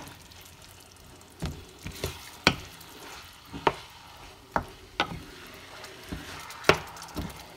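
A wooden spoon stirring chunks of chicken through thick sauce in a frying pan, knocking against the pan about eight times at irregular intervals, over a faint sizzle from the pan.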